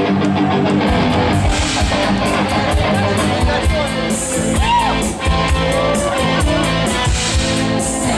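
Rock music: electric guitar holding sustained chords, with a drum kit coming in about a second in and playing a steady beat.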